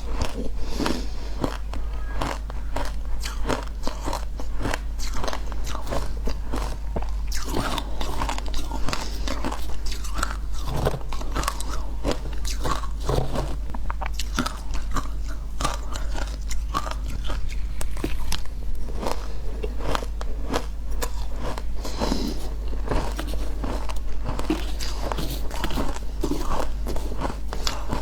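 Close-miked crunching and chewing of shaved ice, a dense run of crisp crackling bites with no pauses.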